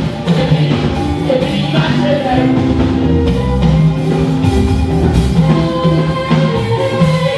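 Church music: a choir singing a gospel song over drums and instruments.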